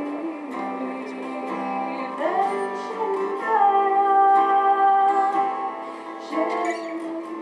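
A woman singing a folk song to acoustic guitar accompaniment, holding one long note about halfway through.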